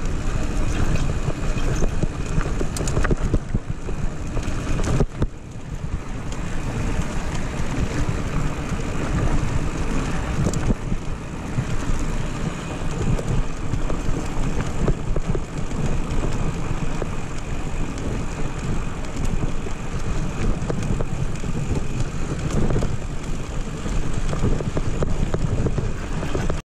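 Mountain bike riding fast down a loose gravel road: wind buffeting the camera's microphone over the steady rush of the tyres on the gravel, with short knocks and rattles of the bike over bumps.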